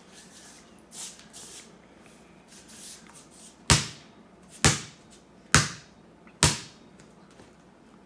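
A basketball dribbled four times in an even rhythm, about one bounce a second, after a few soft rustles.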